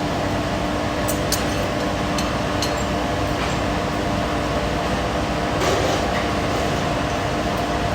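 Farrier's forge running steadily while it heats steel, a constant noise with a low hum, and a few faint clicks in the first few seconds and again later.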